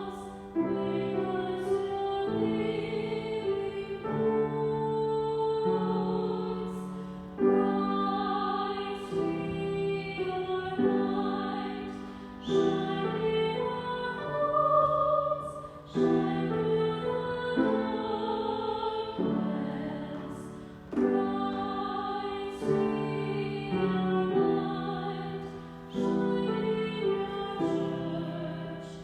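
A slow hymn sung with keyboard accompaniment: sustained chords that change every second or two, with the melody held over them.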